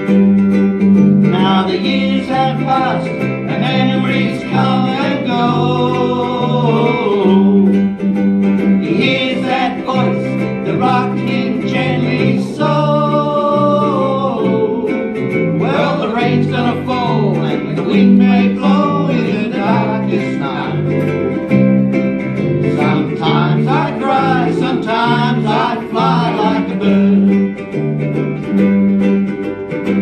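Ukuleles strumming chords, with a singer's slow melody with vibrato over them from about a second and a half in until near the end.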